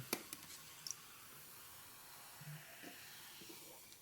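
Carbonated energy drink fizzing faintly in a cup just after pouring, an even soft hiss, with a few light clicks in the first second.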